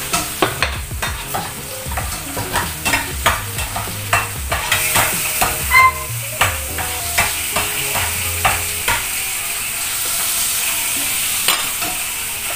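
Food sizzling in a frying pan while a utensil stirs it, scraping and knocking against the pan many times. One clink rings briefly near the middle.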